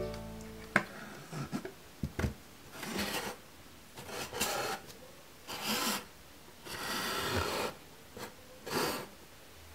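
Small wooden frames being handled: a few light knocks in the first couple of seconds, then five short scraping rubs of wood being slid as the frames are fitted together and stood up.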